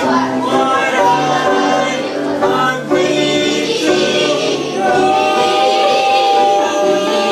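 Music with several voices singing together, holding long notes, including one long held note in the second half.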